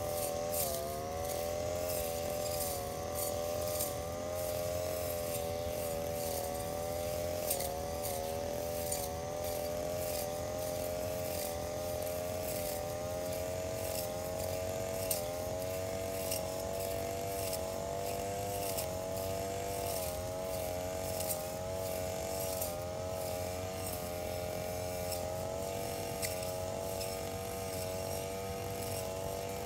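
Engine brush cutter running at high revs while cutting grass, its pitch wavering slightly as the load changes, with occasional ticks.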